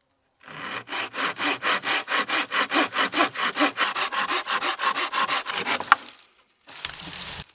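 Small hand saw cutting dry fallen wood in quick, even strokes, about six a second, that stop about six seconds in with a sharp click.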